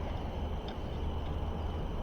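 Steady low outdoor background rumble with a faint, steady high-pitched hum, and a single faint click about two-thirds of a second in.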